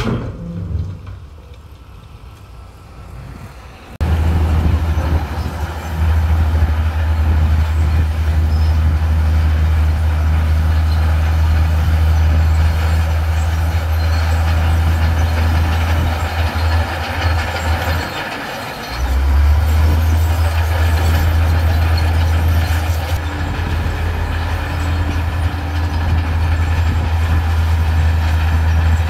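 Heavy diesel earth-moving machinery running with a steady low drone, cutting in suddenly about four seconds in and briefly dropping away about eighteen seconds in.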